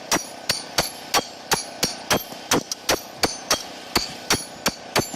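Hammer blows struck in a steady, even rhythm, about three to four a second, each with a brief high ring.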